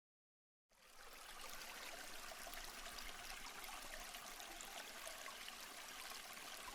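Dead silence for a moment, then a faint, steady hiss that carries on with no tones or rhythm in it.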